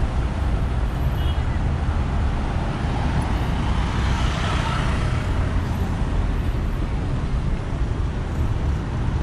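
City street traffic at a busy intersection: cars driving through with a steady low rumble, one passing closer and swelling then fading about four to five seconds in.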